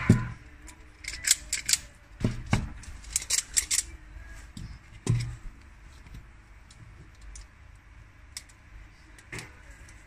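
Automatic wire stripper pliers being handled and shifted on a tabletop: a quick run of sharp clicks and clacks in the first few seconds, a dull knock about five seconds in, then only occasional faint clicks.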